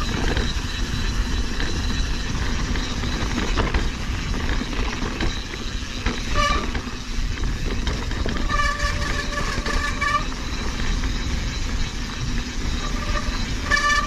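Mountain bike riding over a rocky jeep trail: a steady low rumble of rolling and wind noise. A high-pitched whine from the bike comes and goes, briefly at about the middle, again for a couple of seconds, and once more near the end.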